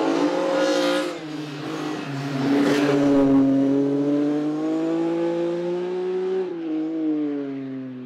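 Race car engine at full throttle on a hillclimb, its pitch climbing steadily through each gear and breaking off sharply at upshifts, about a second in, around two seconds in and again near six and a half seconds.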